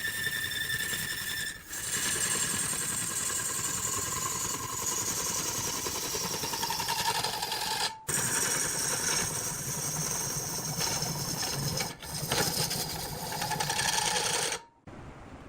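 Woodworking machinery running under load, with whining motor tones that slowly fall in pitch, broken by several abrupt cuts.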